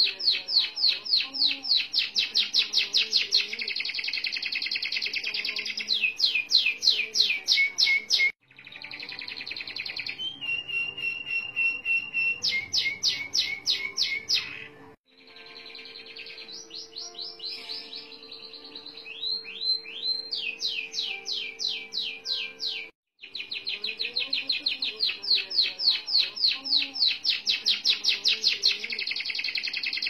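Domestic canary singing long rolling trills of rapid repeated notes, the runs sustained for several seconds in one breath. The song breaks off suddenly three times.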